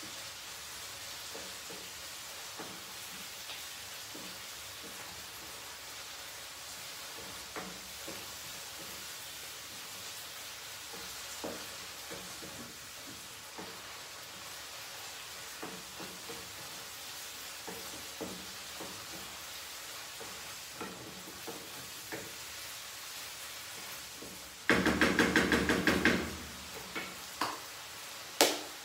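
Food sizzling in a frying pan while a wooden spatula stirs and scrapes it, with scattered light knocks against the pan. Near the end a loud rapid clatter lasts about a second and a half, followed by a single sharp knock.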